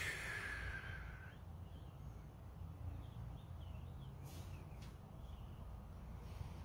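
Quiet outdoor ambience: a steady low rumble of distant traffic and breeze, with small birds chirping faintly a few times in the first half.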